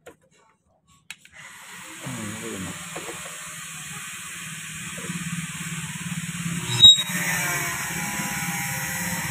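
Electronic hiss and a low hum from an iMix 4-channel mixer's output through the speakers. The noise comes in after about a second of silence and slowly gets louder as a channel knob is turned up. A sharp pop sounds about seven seconds in.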